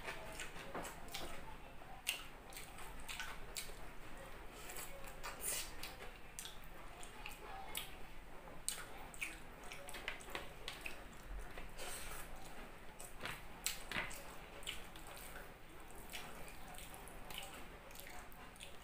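Mouth sounds of eating rice and eggplant omelette by hand: wet chewing and lip smacking, with many short sharp clicks at irregular intervals and a few louder smacks.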